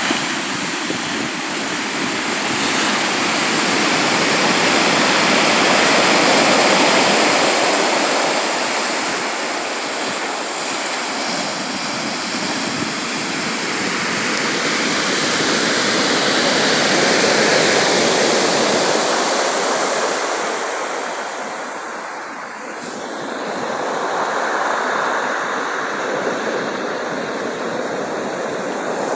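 Sea surf: waves washing in and drawing back, the rush of water swelling and easing in three slow surges.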